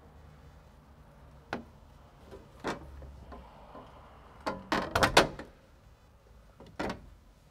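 Scattered sharp clicks and knocks of nuts, washers and a hand tool as the nuts are fitted and done up on the window's backing plate bolts, with a quick cluster of several knocks a little past the middle.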